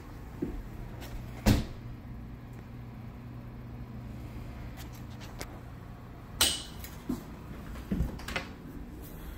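Stainless refrigerator and freezer doors being opened and shut. There is a sharp thump about a second and a half in, then a loud thud with a brief metallic ring at about six seconds, followed by a few lighter knocks as the doors close. A steady low hum runs underneath through the first part.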